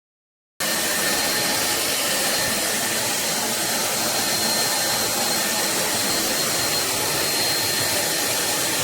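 Corded stick vacuum cleaner's motor running steadily at full suction, a loud whooshing hiss with a thin high whine over it. It cuts in suddenly about half a second in.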